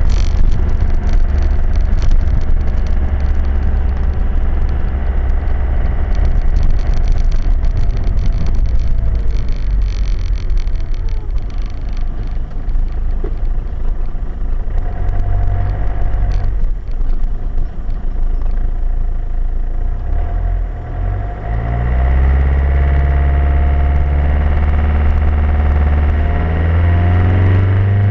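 Hymer 564 motorhome driving, heard from inside the cab: steady engine drone with road noise. The engine eases off and goes a little quieter past the middle, then its pitch climbs as the motorhome pulls away and accelerates near the end.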